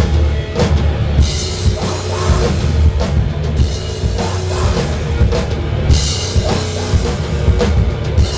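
Heavy rock band playing live and loud: distorted electric guitars through amplifiers and a drum kit with frequent cymbal crashes, a vocalist shouting into a microphone over them.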